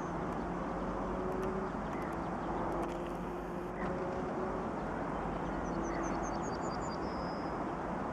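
2TE10MK diesel locomotive's engines running as it approaches hauling a freight train: a steady drone with a faint low hum. A songbird sings a short phrase of high notes near the end.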